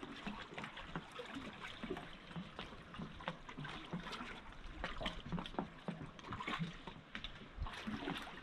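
Small waves lapping and trickling among the rocks at the water's edge, a faint, irregular patter of little splashes and drips.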